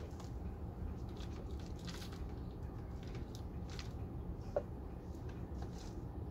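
Potting soil poured from a plastic cup into cut plastic-bottle planters: faint, scattered rustling of falling soil, with one sharp click about four and a half seconds in, over a steady low background rumble.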